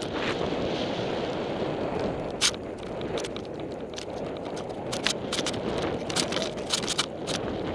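Mountain bike rolling fast down a dirt trail, heard from a helmet camera: steady wind noise on the microphone and tyre rumble, with sharp clicks and rattles from the bike over bumps. One sharp clack comes about two and a half seconds in, and a run of rattles comes near the end as it rides over the jumps.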